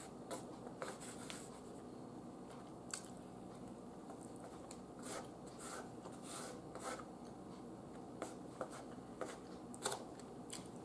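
Faint eating sounds: a metal fork scraping and clicking against a plate as pork steak is cut and picked up, with soft chewing between. The clicks are short and irregular, a dozen or so, none loud.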